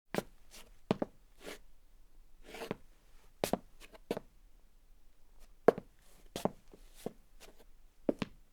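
Footsteps of men's leather-soled shoes on a solid wooden floor, walking at an uneven pace, with many steps landing as a quick heel-then-toe double knock and a couple of short scuffs.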